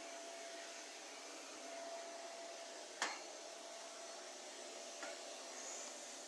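Steady, vacuum-cleaner-like hiss with a faint steady tone running through it, broken by a sharp click about three seconds in and a softer one near the end.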